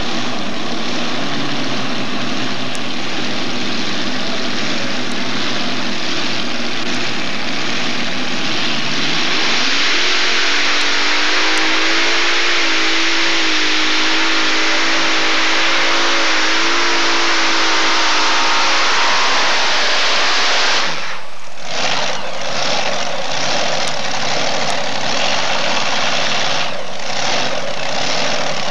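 Unlimited modified pulling tractor's engines running at the start line, then opened up at full throttle for about ten seconds during the pull, with the engine note climbing. About twenty seconds in the power cuts off sharply, and the engines go on at a lower idle with brief drops in level.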